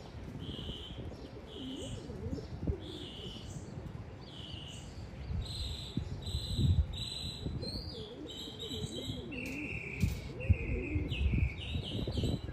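Domestic pigeon cooing in low, wavering phrases, twice. All the while another bird chirps in short, high notes, repeating about once or twice a second.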